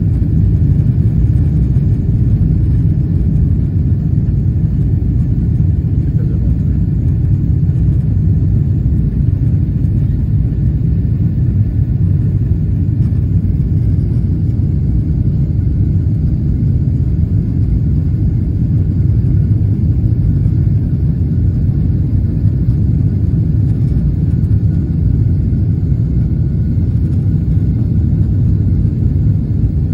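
Airliner cabin noise in flight: a steady low rumble of the jet engines and rushing air, heard from inside the cabin at a window seat, with a faint steady whine above it.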